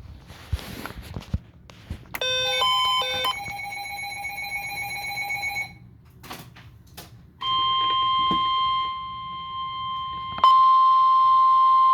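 Electronic emergency alert tones. About two seconds in comes a quick run of stepped beeps, then a pulsing alert tone for about three seconds. About seven seconds in, the steady single-pitch NOAA Weather Radio warning alarm tone starts, louder from about ten seconds in, heralding a National Weather Service severe thunderstorm warning.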